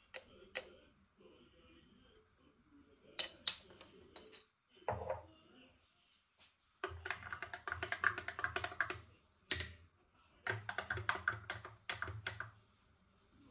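Metal spoon clinking against a glass as juice is stirred: a few single clinks, then two runs of quick, rapid tapping a few seconds long.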